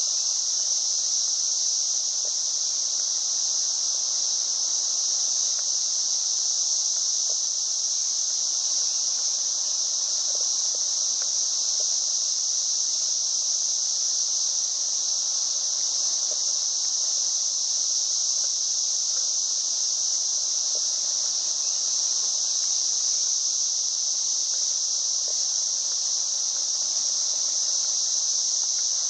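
Steady, unbroken high-pitched drone of an insect chorus, with no pauses or change in level.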